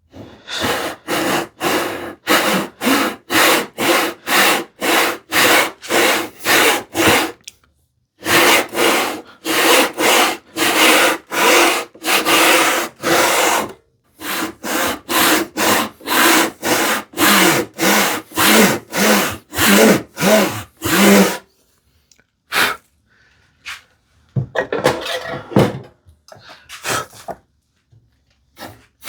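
Stanley 50 plow plane cutting a groove in wood: repeated short scraping strokes about two a second, in three runs with brief pauses, then a few scattered strokes near the end. The plane cuts but binds, which the woodworker puts down to the skates holding it off the wood.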